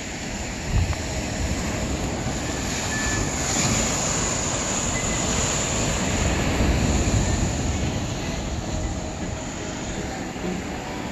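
Ocean surf breaking and washing over shoreline rocks: a loud, steady wash of noise with a heavy low rumble, and a brief thump about a second in.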